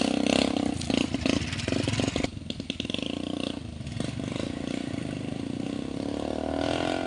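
Small motorcycle engines revving unevenly as the bikes labour through deep mud. The running is rough and rattly at first, then steadier, and the engine pitch climbs near the end.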